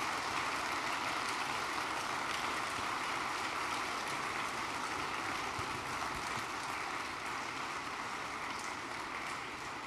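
Audience applauding steadily, slowly dying down near the end.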